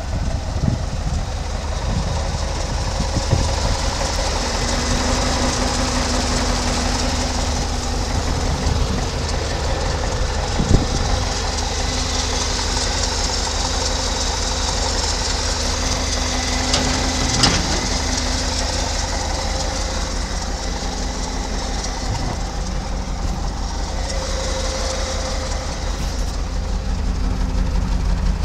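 International 345 gas V8 engine of a 1966 International 1700 grain truck idling steadily, with a low rumble and an even pulsing. Two brief sharp clicks stand out, one about a third of the way in and one a little past the middle.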